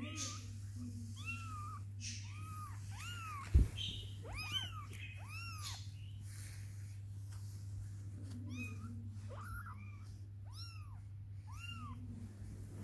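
Kitten mewing over and over, short high mews that rise and fall in pitch, coming in quick runs with a lull in the middle. One sharp loud thump a few seconds in, and a steady low hum underneath.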